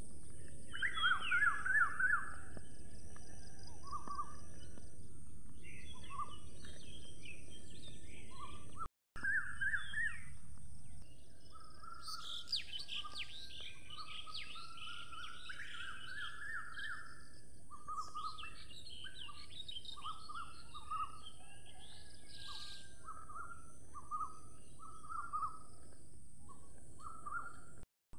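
Small birds chirping and singing in short repeated phrases, busier with high chirps from about twelve seconds in, over a steady low background rumble and hiss. The sound drops out for an instant about nine seconds in.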